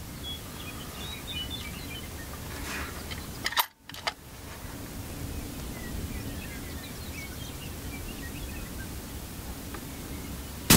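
Outdoor ambience: a steady low rumble with birds chirping here and there. A short cluster of sharp clicks comes about a third of the way in, and one loud, sharp crack comes right at the end.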